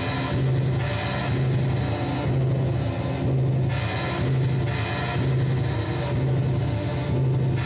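Live band music from an electric guitar and keyboard electronics: a loud, distorted drone built on a deep tone that throbs about once every three-quarters of a second.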